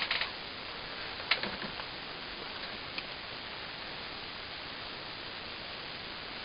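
Steady hiss of background noise, with a short rustling burst at the start and two short clicks, about one and three seconds in.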